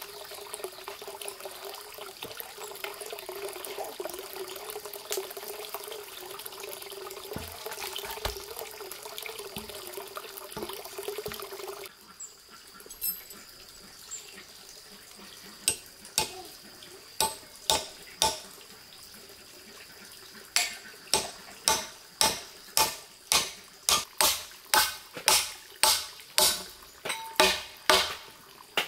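Water running steadily, stopping suddenly about halfway through. Then a series of sharp knocks, a few scattered ones at first, then a steady run of about two a second to the end.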